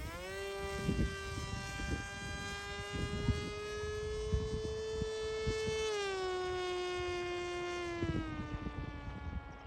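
Volantex Ranger 1600 RC plane's electric motor and propeller whining as it flies, throttled up at the start, stepping down in pitch about two-thirds of the way through, then fading. Wind buffets the microphone with low gusty rumbles throughout.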